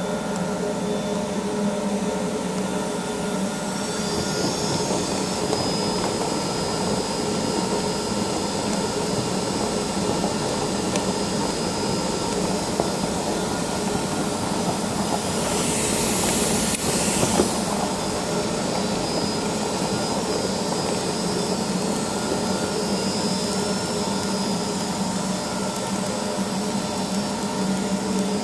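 HTC 650 RX remote-controlled concrete floor grinder running steadily as it grinds a concrete floor, a constant machine drone with a thin high whine over it. About sixteen seconds in, a brief hiss rises and fades over a second or so.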